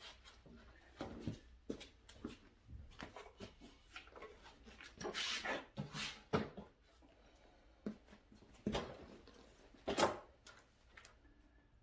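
Scattered knocks, scrapes and clunks of a benchtop table saw on its metal stand being handled and turned around, with a longer scrape about five seconds in and a sharp knock about ten seconds in.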